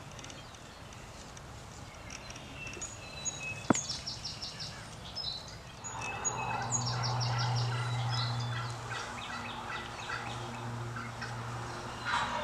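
Wild turkey gobbler gobbling several times, each a rapid rattling call. A steady low hum joins about halfway through.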